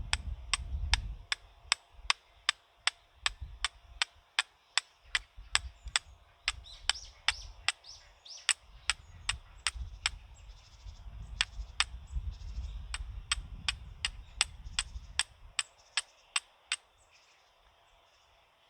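Rapid, evenly spaced sharp strikes, about three a second, stopping near the end, with wind buffeting the microphone underneath.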